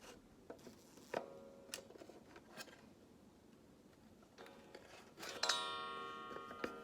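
Light clicks and knocks of a wooden cuckoo clock case being handled as its back panel is put back on, then a sharp knock about five seconds in that sets off a ringing, many-toned metallic sound fading over a second or so.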